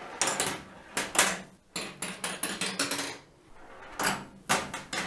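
A marble running down a Makeway magnetic marble run, rolling along the rails and clacking through the plastic track pieces. It makes an uneven string of sharp knocks with short rattling rolls between them.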